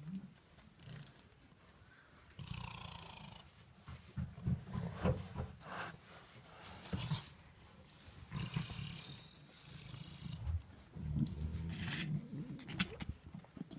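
A sheep sneezing again and again: short sharp sneezes through the nose, with two longer ones about two and a half seconds and eight and a half seconds in.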